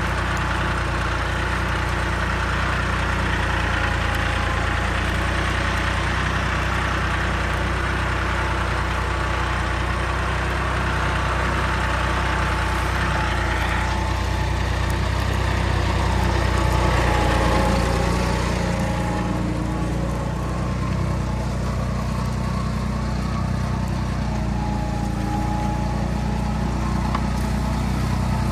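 John Deere 5310 tractor's three-cylinder diesel engine running steadily under load as it pulls a mounted plough through the soil.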